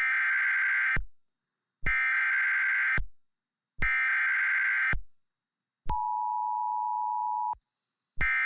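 Mock Emergency Alert System tones played back: three one-second bursts of SAME header data screech, then a steady two-tone attention signal lasting under two seconds, and a short end-of-message data burst starting near the end.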